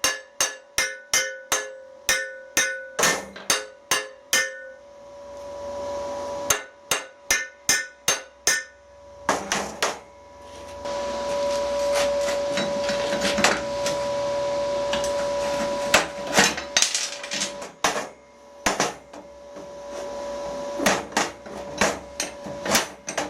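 Hand hammer striking steel in runs of rapid blows, about two to three a second, each blow ringing at the same metallic pitch. The runs are broken by short pauses, with a denser, rattling stretch of strikes in the middle.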